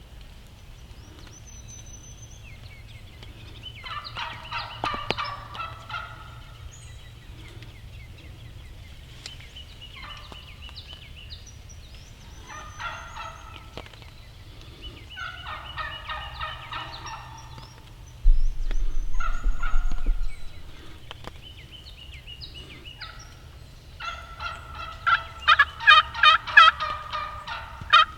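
Wild turkey gobbler gobbling several times, each gobble a rattling call of a second or two. Near the end the calls come in a quick, evenly spaced run. About two-thirds of the way through there is a brief low rumble that lasts about two seconds.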